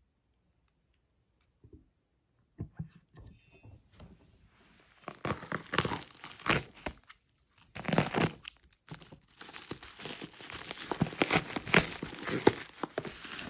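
Packaging being unwrapped: a few soft clicks and rustles, then from about five seconds in, dense crinkling and tearing of wrapping material.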